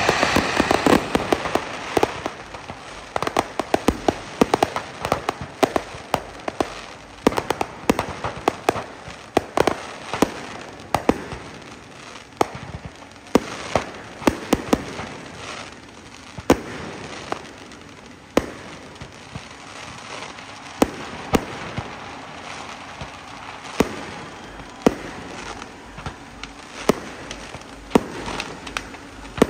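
Fireworks going off: sharp bangs and crackling pops in quick, irregular succession, loudest in the first couple of seconds.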